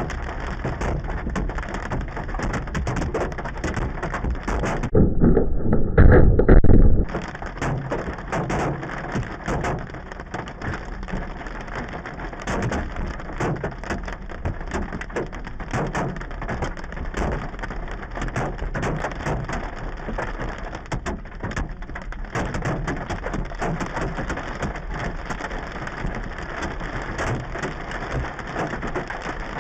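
Hailstones pelting down on hard surfaces: a dense, irregular rattle of impacts over a steady rushing of falling ice and rain. About five seconds in, a loud low rumble lasting about two seconds briefly takes over.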